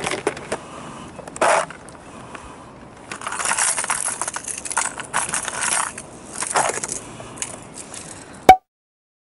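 Clear plastic tackle box being handled as hard lures are rummaged through, the plastic rattling and the lures clinking against each other in uneven bursts. A sharp click about eight and a half seconds in is the loudest moment, and then the sound cuts off suddenly.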